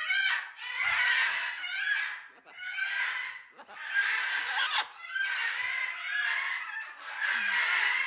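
Macaws calling again and again, a run of pitched calls each about a second long with short gaps between them.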